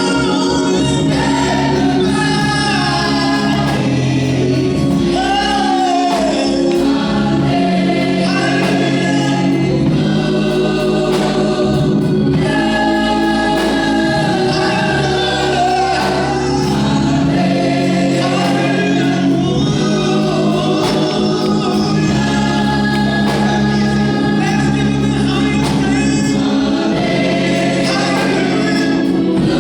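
Gospel choir singing with instrumental accompaniment: sustained chords with voices gliding over them.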